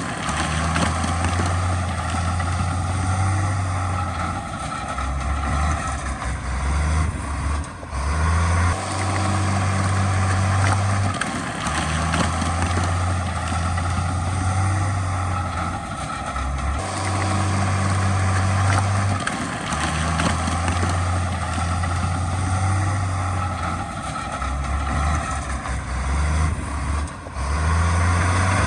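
Heavy diesel engine of earthmoving machinery running under changing load, a loud low drone that shifts up and down in steps, with brief dips about every nine seconds.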